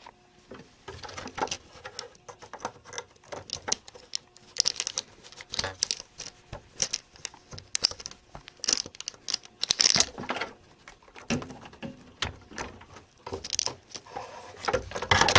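Irregular clicks, taps and rustles of hands handling computer parts and cables, plugging a hard drive back in and clipping pieces into a desktop computer case.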